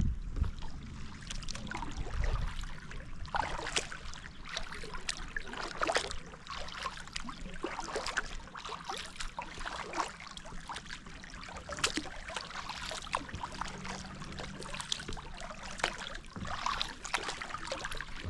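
Kayak paddle strokes in creek water: irregular splashes and water trickling off the paddle blade.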